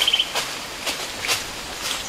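Footsteps crunching through dry leaf litter and brushing through undergrowth, about two steps a second, with a short high trill at the very start.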